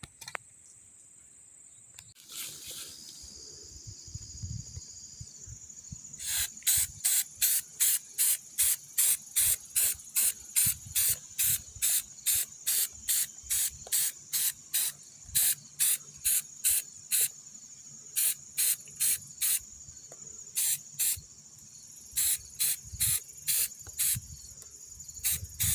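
Evening insects: a steady high-pitched trill, joined about six seconds in by raspy pulses at about three a second that stop and restart in short gaps.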